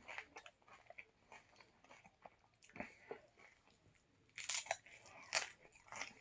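Close-up chewing and biting into crunchy taco shells, with sharper crunches about four and a half and five and a half seconds in.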